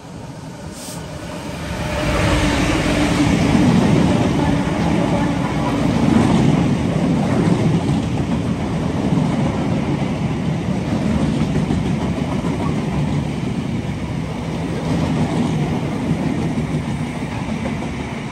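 Diesel freight train passing close by: the locomotive's engine runs past, followed by a long rake of bulk tank wagons rumbling and clattering over the rails. It builds up over the first two seconds, holds steady, and begins to fade near the end.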